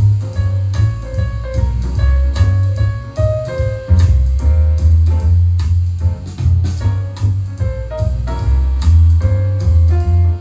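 Music with piano, drum kit and a heavy bass line, played back through Edifier 1280 powered bookshelf speakers for a sound test.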